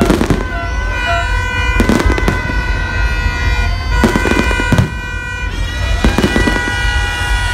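Aerial fireworks bursting overhead: a series of bangs with crackle, about one every one to two seconds, over steady held tones in the background.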